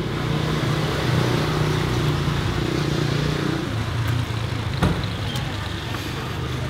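A motor vehicle engine running nearby: a steady low hum that eases somewhat after the first three to four seconds, with a single sharp click about five seconds in.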